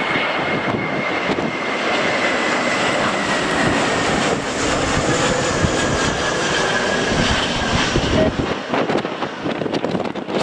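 Jet airliner flying past with its engines running: a loud rushing noise with a high whine that falls slowly in pitch, dying away about eight seconds in.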